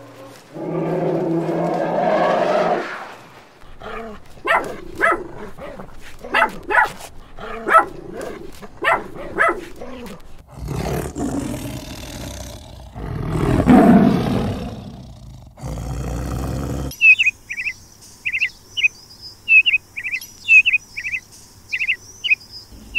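A run of animal sounds: a loud, low growl-like call swelling and fading about midway, then quick, high bird chirps, about two a second, through the last six seconds.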